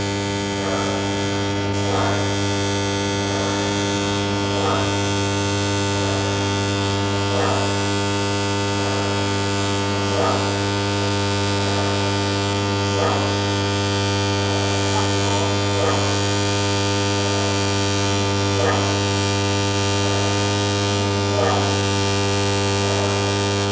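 Coils of a mains-powered linear induction motor track (a 'magnetic river') humming loudly and steadily, with a light tap every one to three seconds as the levitated aluminium plate is driven back and forth by fields travelling against each other from both ends.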